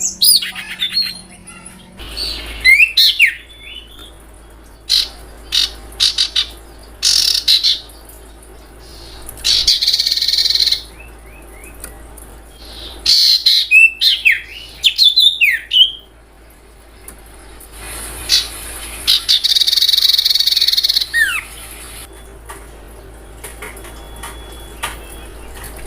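Spotted owlet (sirtu) calling: bouts of harsh screeches about a second long, mixed with short chirping and falling notes, repeated with pauses between bouts.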